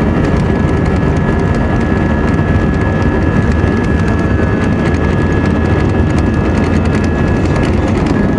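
Airbus A320-family jet engines at takeoff thrust during the takeoff roll, heard from inside the cabin: a steady high whine over a loud, deep rumble from the wheels on the runway.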